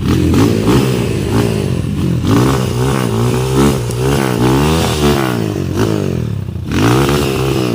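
Trail motorcycle engine revved hard again and again, its pitch rising and falling about twice a second.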